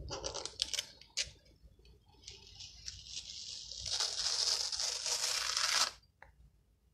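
Sticky-backed Chalk Couture silk-screen transfer being peeled off a painted board: a few crackles at first, then a steady tearing hiss that grows louder over a few seconds and stops suddenly as the stencil comes free.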